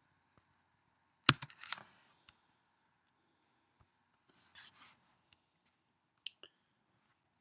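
Quiet room tone broken by small handling noises at the desk: a sharp click about a second in, followed by brief rustling, another short rustle a little past the middle, and two quick light clicks near the end.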